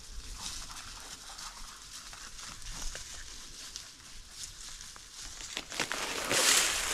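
Dry leaves and dead grass crackling and rustling under a walker's feet and against clothing, scattered and light at first, then much louder from about five and a half seconds in as the brush is pushed through.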